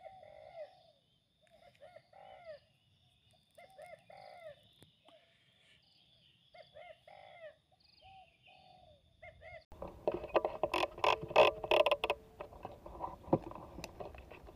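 Spotted dove cooing in repeated phrases about every two seconds, over a faint steady high tone. About ten seconds in this gives way abruptly to loud rustling and crackling noise.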